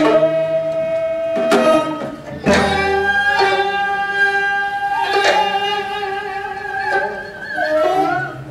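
Korean traditional ensemble music: gayageum zithers plucking, with a few strong struck accents, under long held melody notes that waver in pitch.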